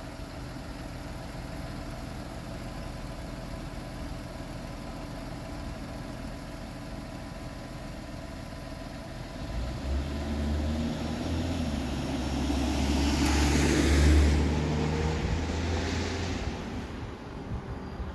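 A car passing by on a wet road: engine rumble and tyre hiss build from about ten seconds in, are loudest near fourteen seconds, and fade away, over a steady low hum.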